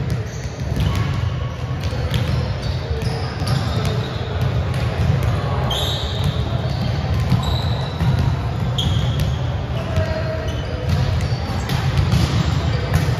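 Volleyballs being hit and bouncing on a gym floor, many sharp smacks in an echoing hall, with short high sneaker squeaks.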